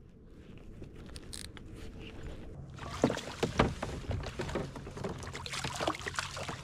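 A hooked striped bass thrashing and splashing at the surface beside a kayak as it is reeled in. The splashing starts about three seconds in, with a few sharp splashes, over a faint steady hum.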